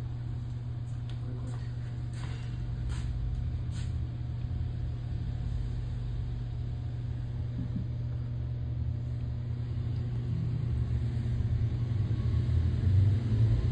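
Reef aquarium circulation pump (wave maker) running with a steady low hum and moving water. A few faint ticks come in the first few seconds, and the hum grows louder near the end.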